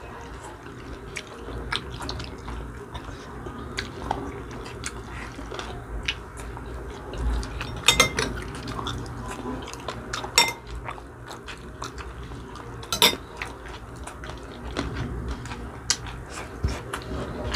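Two people eating spicy adobo chicken feet by hand: chewing and mouth sounds, with scattered clicks and clinks of a spoon against plates and a glass bowl. The sharpest clinks come about eight, ten and thirteen seconds in.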